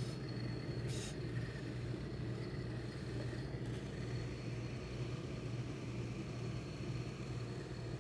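Steady low machine hum from the steam pressing equipment, with a short hiss of steam from the hose-fed steam iron about a second in.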